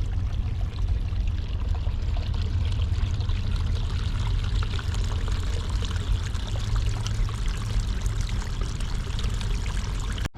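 Water pouring and splashing in a steady, continuous flow.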